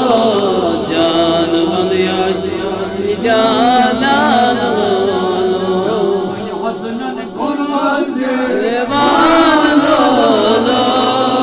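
A man singing a Kashmiri naat in a chanting style, the melody gliding and wavering in long ornamented phrases, with a short dip about seven seconds in.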